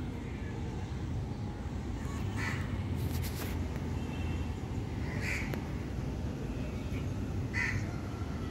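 Crow cawing three times, a couple of seconds apart, over a steady low background rumble.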